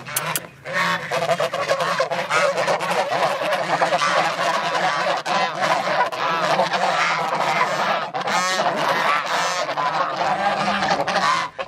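A flock of domestic geese honking loudly, many calls overlapping in a continuous clamour, close up. The honking starts about a second in and stops abruptly near the end.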